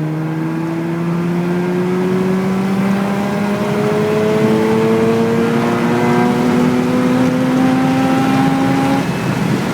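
Mazda RX-8's twin-rotor Renesis rotary engine pulling hard at wide open throttle in third gear, its note climbing steadily for about nine seconds, with wind noise from the open windows. About nine seconds in, the climbing note breaks off. On the stock ECU tune the owner gets a misfire and bog above 6,000 rpm, and this break is where that misfire sets in.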